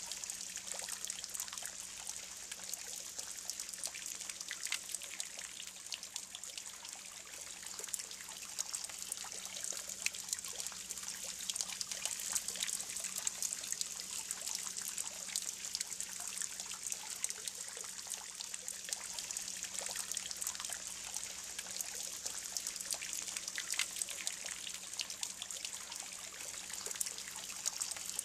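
Spring water steadily trickling and splashing from a fountain into a stone pool: an even hiss full of tiny drips.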